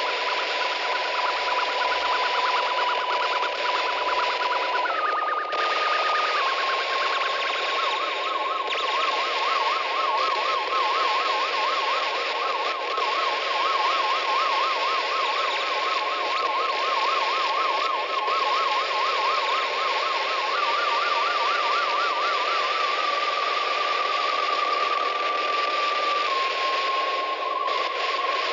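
Low-fi noise soundscape: a dense steady hiss with a single whistling tone on top. The tone jumps to a new pitch every few seconds and for long stretches warbles rapidly, like a car alarm.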